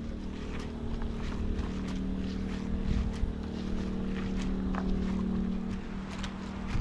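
A steady engine hum, like a vehicle idling, with scattered light clicks and knocks over it. The hum weakens near the end.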